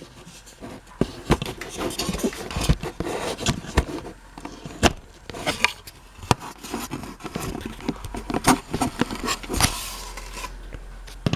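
A Hunter Stratford ceiling fan blade being fitted back onto its quick-connect mount by hand: an irregular run of clicks, knocks and scrapes.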